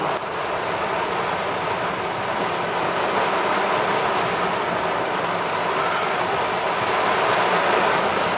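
Heavy rain falling on a moving car and its tyres running on a flooded road, heard from inside the cabin as a steady rushing hiss.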